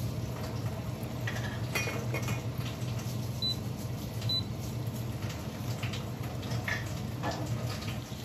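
Salmon and asparagus frying under a glass lid: a steady low hum with muffled, scattered crackles. A little before the midpoint come two short high beeps about a second apart, from the glass-top hob's touch controls.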